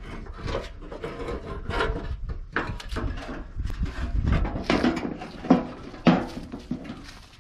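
Irregular clunks and knocks of a sheet-metal truck fender being handled and offered up into place, with two sharper knocks about five and a half and six seconds in.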